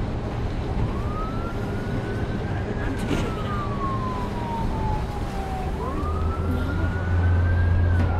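Emergency vehicle siren wailing, rising quickly and falling slowly in a cycle of about five seconds, over a steady low rumble. A loud low hum comes in near the end.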